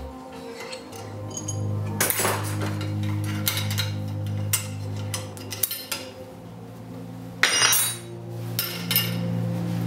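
Stainless-steel tubing knocking and clinking against the steel rollers and plate of a hand tube bender, a handful of sharp metallic clinks with a louder scrape about three-quarters of the way in, over background music.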